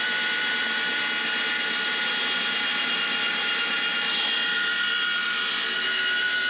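Electric drill spinning the oil pump through the distributor hole to prime the engine, a steady whine held at one speed. Oil is being pushed up to the rocker arms, the sign that the oil pump is working.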